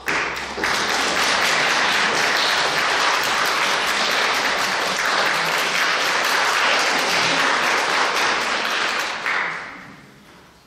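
Audience applauding: steady dense clapping that starts just after the beginning and dies away shortly before the end.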